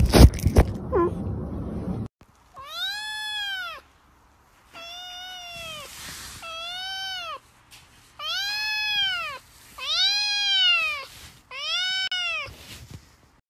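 A tabby kitten meowing six times in a row, each meow rising and then falling in pitch, with short pauses between them. The calls follow a couple of seconds of loud knocks near the start.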